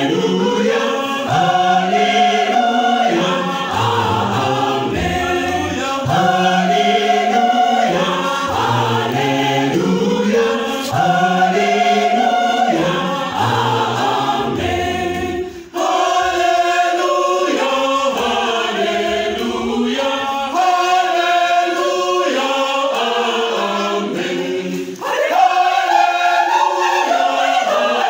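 Mixed church choir of women's and men's voices singing in parts, with a deep bass line under the upper voices. The singing breaks off briefly about halfway through and picks up again with the low bass part mostly gone.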